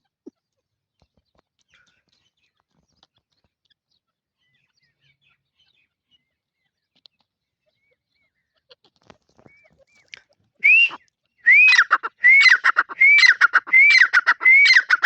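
Grey francolin (teetar) calling: after a long hush, about ten seconds in it starts a loud, ringing series of repeated rising-and-falling whistled notes, about two a second. A few faint low knocks sound at the very start.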